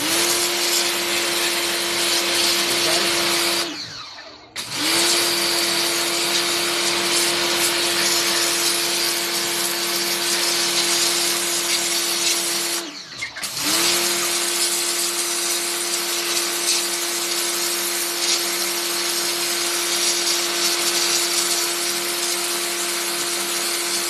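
Pressure washer's motor and pump running with a steady whine over the hiss of the water jet. It cuts out twice for about a second, about 4 s and 13 s in, then starts up again.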